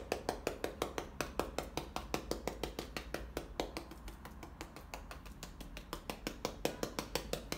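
A sponge dabbing acrylic paint onto a canvas in quick, even taps, several a second, stippling foliage.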